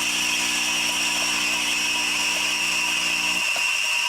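Breville Oracle espresso machine's pump humming as it pulls a double shot, then cutting off about three and a half seconds in as the shot ends. A steady hiss from the automatic steam wand frothing milk carries on throughout.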